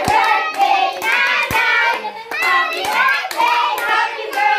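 Several people singing and cheering together with handclaps, a few sharp claps standing out.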